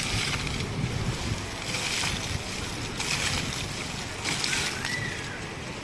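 Fountain water splashing, a steady rushing hiss that swells in surges about every second and a half.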